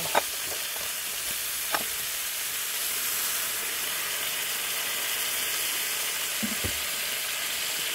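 Steady hissing noise, with two short sharp clicks in the first two seconds.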